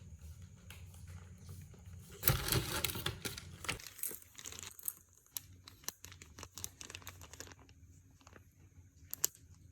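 Faint rustling and crinkling, loudest in a burst about two seconds in, followed by scattered small clicks and taps.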